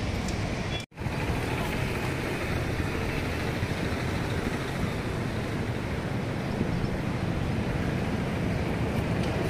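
Steady road traffic noise, a continuous hum of passing vehicles, broken by a very brief gap in the sound about a second in.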